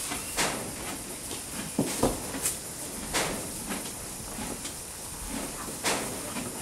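A mare and her foal shifting about in a stable, with scattered soft knocks and rustles as the mare noses into hay on the floor, over a faint steady hiss.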